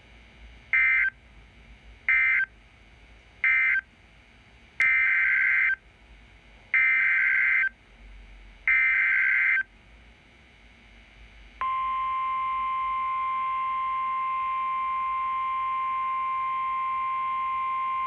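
Emergency Alert System tones on NOAA Weather Radio. Three short SAME data bursts mark the end of one warning message. Three longer bursts of about a second each are the SAME header for the next alert. About twelve seconds in, the steady single-pitch 1050 Hz warning alarm tone starts and holds.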